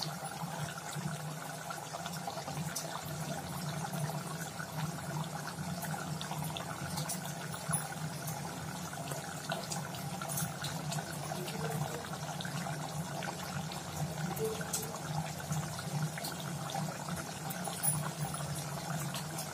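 Gongura chicken curry simmering in an aluminium pot on a gas stove: steady bubbling with scattered faint pops over a low steady hum.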